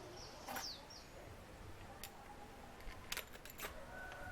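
Faint clicks and taps of small metal parts and screws being handled as a car starter motor is put back together, with a bird chirping briefly about half a second in.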